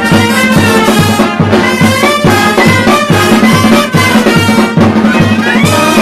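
Loud carnival brass band playing a lively tune: sousaphone bass notes pulse on a steady beat under trumpets, flugelhorns and a clarinet. Near the end the upper parts run up to a high note.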